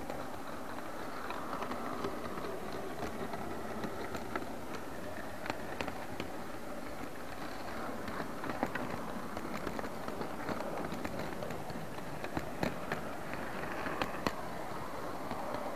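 OO gauge model train running along its track, heard from on board: a steady rumble with scattered sharp clicks.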